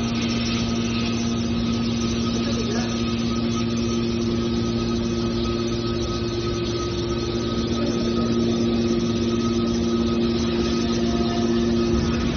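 Hydraulic power unit of a scrap metal shear baler running steadily, a constant machine hum.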